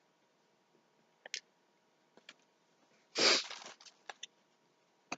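A short breath through the nose, about three seconds in, with a few faint clicks around it.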